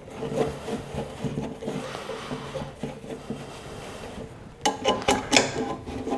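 Wrench snugging down quarter-20 bolts on a steel broadfork's top cap: metal scraping and rubbing as the bolts are turned, then a few sharp metal clicks and knocks about five seconds in.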